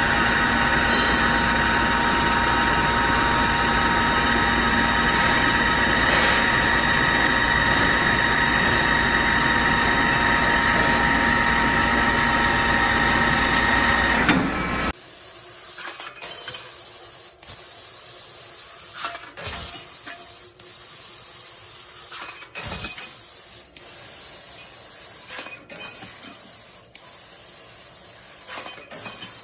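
Factory machinery running with a steady noise and several steady hum tones. About halfway through it cuts to a quieter hiss broken by irregular short knocks.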